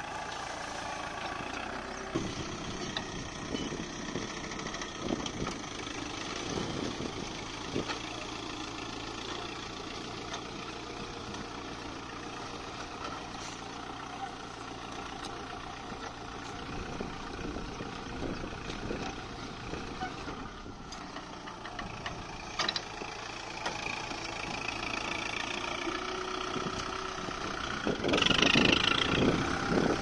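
Kubota MU4501 tractor's four-cylinder diesel engine running steadily while it pulls a mounted mouldboard plough through the soil, louder near the end.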